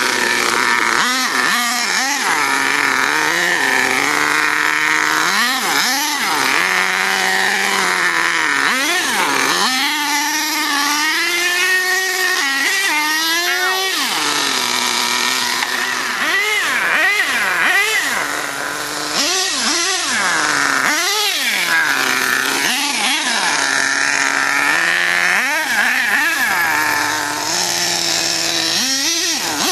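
Nitro RC monster truck (HPI Savage X) with a K5.9 engine running hard as it drives. The high-pitched engine revs up and drops back again and again.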